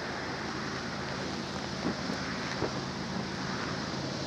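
Distant Union Pacific diesel locomotives working upgrade at the head of a stack train, a steady low drone, mixed with wind noise on the microphone.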